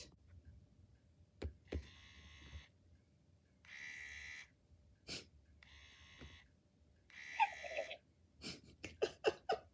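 Small electric motors inside a Hasbro animatronic Grogu toy whirring in four short bursts about two seconds apart as it runs its tap-twice hiding movement, eyes turning down and head sinking behind its collar. A quick run of clicks comes near the end.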